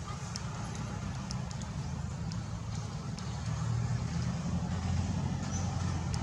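Low steady rumble of a motor vehicle engine, growing a little louder about halfway through, with a few faint clicks.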